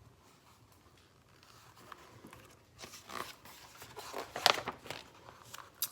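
Faint rustling and handling of paper as a picture book's page is turned, starting about halfway through.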